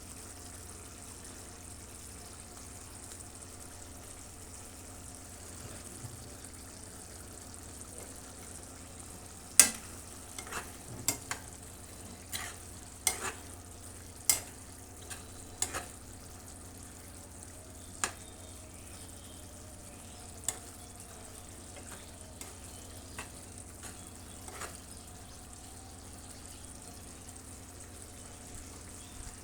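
Chicken kebabs frying in a pan with a steady sizzle. From about ten seconds in, a string of sharp, irregular knocks and clicks from a utensil striking the pan, the first one the loudest.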